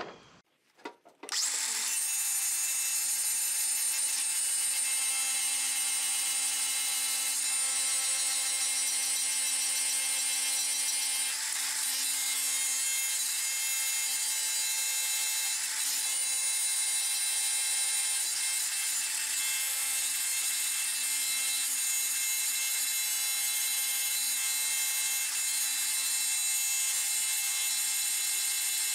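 DeWalt 60-volt cordless angle grinder starting about a second and a half in, then running steadily with a high whine as its disc grinds down the head of a steel pin riveted through an aluminum beam.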